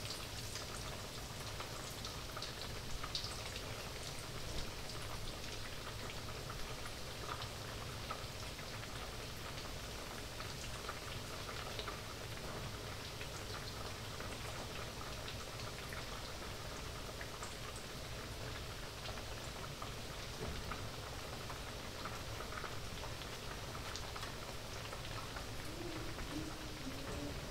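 Breaded eggplant slices frying in a pan on medium heat: a steady sizzle full of small crackles and pops.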